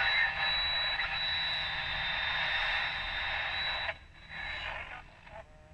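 Wind-up radio's speaker hissing with static and a steady high whistle, as if tuned between stations. It cuts off abruptly about four seconds in, a short burst of hiss follows, then faint steady tones near the end.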